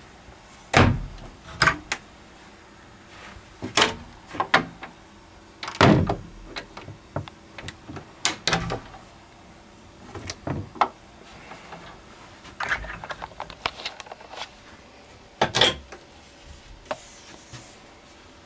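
Wooden cabinet and closet doors being opened and shut: a series of sharp knocks and clicks, spaced irregularly.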